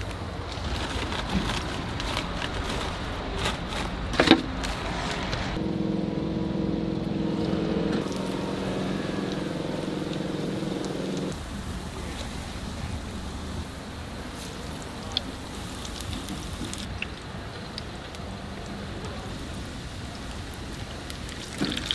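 Deep-frying oil sizzling at a street-food stall, with a sharp metal knock about four seconds in. A steady droning hum comes in at about six seconds and stops at about eleven, after which the sizzle and street noise go on more quietly.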